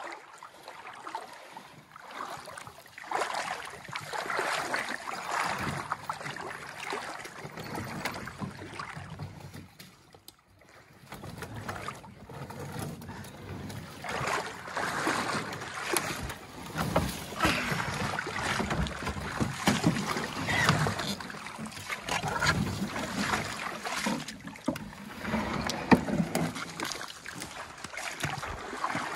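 Canoe being paddled down a shallow, rocky stream: running water around the hull, with paddle strokes, splashes and repeated knocks. There is a short lull about ten seconds in and a sharp knock near the end.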